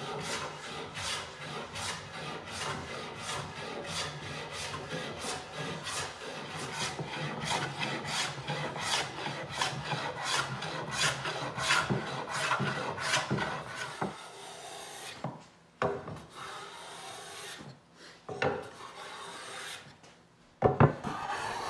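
Metal hand plane shaving a glued-up hardwood panel in quick repeated strokes, each a rasping swish of the iron cutting wood. This is the face being re-flattened to take down a slight hump at the glue lines. About two-thirds of the way through, the strokes become fewer and more widely spaced.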